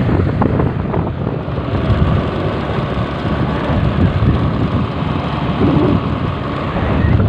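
Wind buffeting the microphone over the steady running of a motor scooter on the move.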